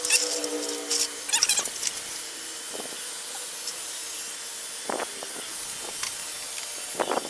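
Pet grooming vacuum with clipper attachment running, a steady hiss of suction, with short scraping and rubbing sounds as it works through a dog's fur, busiest in the first two seconds.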